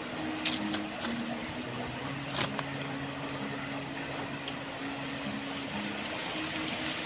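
Low steady hum of an engine, its pitch shifting a little now and then, over a constant hiss, with a few faint clicks as the nylon cast net is handled.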